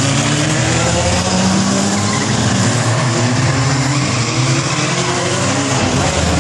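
Several figure-8 stock cars' engines running and revving together, their pitch rising and falling as the cars race around and past, with tyres squealing and skidding.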